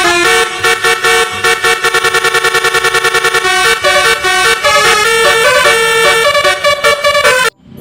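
Bus 'telolet' multi-tone air horn playing a melody of changing notes, with a fast run of quickly repeated notes about two to three seconds in. It is loud and cuts off suddenly near the end.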